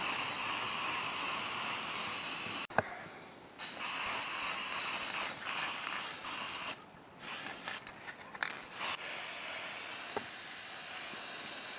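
Aerosol spray paint cans hissing in several long bursts with short breaks between, as paint is sprayed onto metal machine parts. A single sharp click near the end of the first burst.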